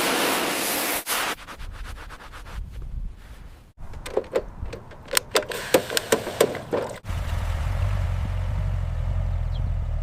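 A short burst of hiss, then a run of sharp clicks and knocks, then from about seven seconds in a car engine running with a low, steady rumble.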